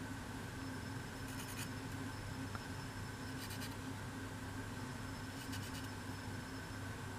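Three short, faint scratching sounds over a steady low hum: glue being run along the edges of laser-cut MDF model-building pieces.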